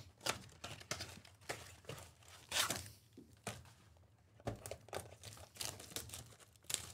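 Baseball card packs being torn open and their plastic wrappers crinkled, in irregular short rips and rustles.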